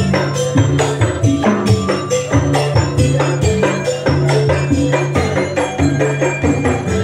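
Percussion music from a walking group of players on carried drums and a gong: a fast, dense run of strikes over a steady low ringing, without a break.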